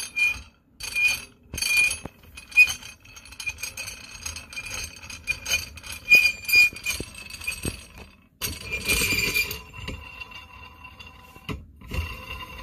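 Ringing metal clinks of a wrench on the nut and threaded rod of a clutch spring compressor, repeated about every half second at first and then more unevenly, with a denser run of clinking about eight seconds in. The nut is being backed off to let a snowmobile primary clutch's spring out of compression.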